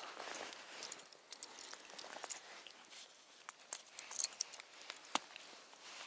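Faint, scattered light clicks and small rattles of hands handling ice-fishing tackle and a just-caught perch.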